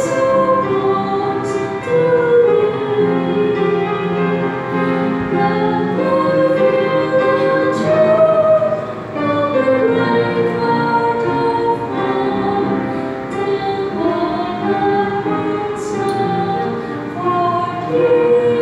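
Slow singing: a sung melody of long held notes, each sustained for a second or two before moving to the next.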